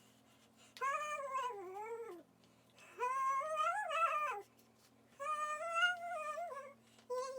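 A domestic cat meowing repeatedly: three long, drawn-out meows that bend in pitch and fall away at the end, with a fourth starting near the end, over a faint steady hum.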